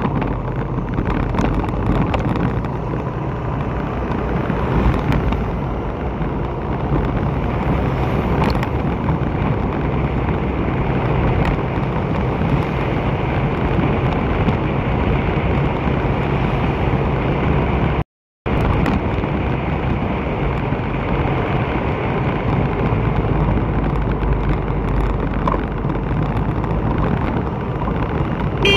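Steady noise of a vehicle riding along a wet street: engine and tyre hiss with wind buffeting the microphone. The sound cuts out completely for a moment about two-thirds of the way through.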